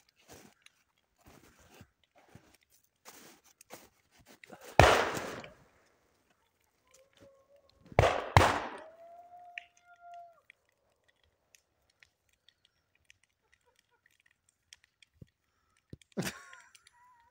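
Scattered light crackles, with two loud crunching bursts about five and eight seconds in and a smaller one near the end.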